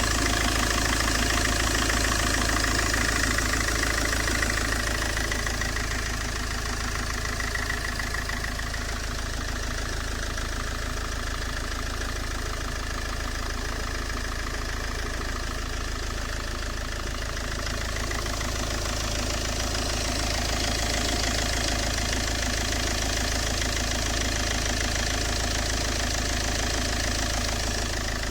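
Peugeot 807 HDi diesel engine idling with its alternator belt squealing, a high squeal that is strongest for the first eight seconds or so and then fainter. The squeal set in after the car had stood unused for about two weeks.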